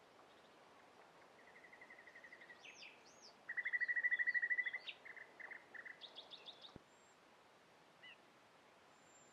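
Nightingale singing one phrase over a steady background hiss. A run of repeated notes starts about a second in and breaks into a loud, fast series of notes, followed by varied short notes and a buzzy rattle that ends about two-thirds of the way through.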